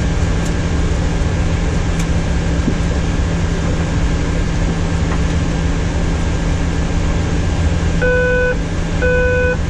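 Steady rushing hum of a Boeing 737-800 flight deck with its systems still running, a constant drone under it. Near the end, two short electronic beeps about a second apart.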